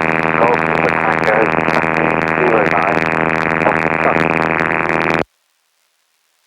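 Jabiru UL-D 450 light aircraft's engine and propeller droning steadily in flight, heard in the cockpit, with faint voices under it. The sound cuts off suddenly about five seconds in.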